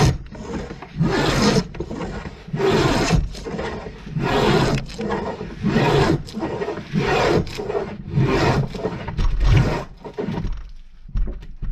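Stanley No. 55 combination plane cutting a profile into a wooden handrail: a run of rasping push strokes, about one a second.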